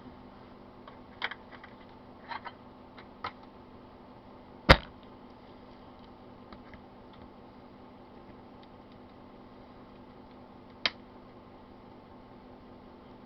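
A few scattered sharp clicks, then one loud sharp crack about four and a half seconds in and a last click near the end, over a steady low hum.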